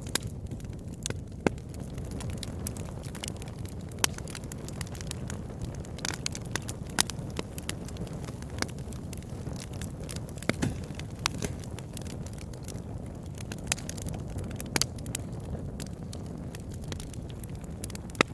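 Campfire burning with a steady low rumble of flames, broken by irregular sharp crackles and pops of burning wood, a few of them standing out loudly.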